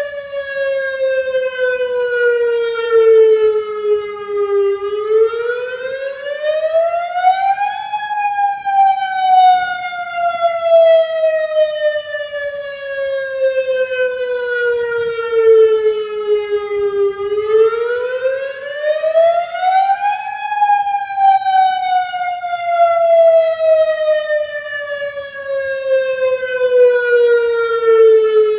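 Federal Signal DSA electronic outdoor warning siren sounding the wail signal in its monthly test. A single pitched tone rises quickly over about three seconds, then falls slowly over about eight seconds, and the cycle runs twice.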